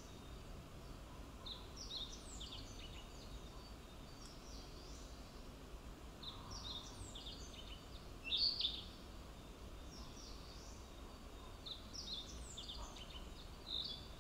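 Male Narcissus flycatcher singing: three short, high-pitched phrases of quick, varied notes, about five seconds apart, the loudest in the middle phrase.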